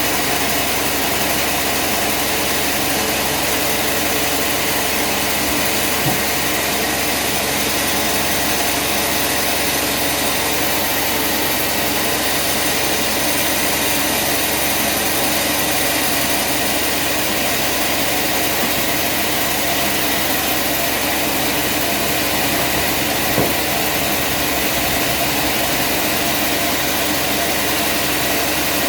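Engine-driven machinery running steadily, with two brief knocks, one about six seconds in and one about twenty-three seconds in.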